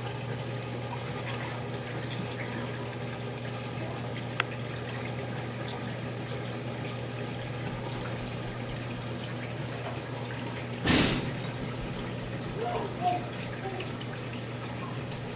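Reef aquarium water circulating: a steady trickle of moving water over a constant low pump hum. A tick comes about four seconds in, and a short loud burst of noise about eleven seconds in.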